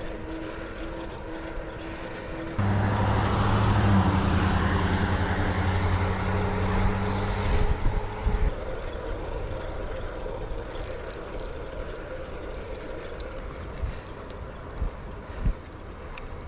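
A motor vehicle going by on the road, its engine drone and tyre hiss coming in suddenly about two and a half seconds in, loudest for about five seconds, then fading. Steady road and wind noise runs underneath, with a few light knocks near the end.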